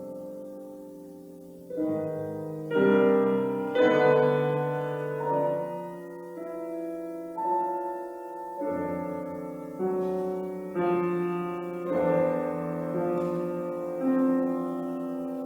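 Piano alone playing slow classical chords, a new chord struck about once a second and left to ring and fade.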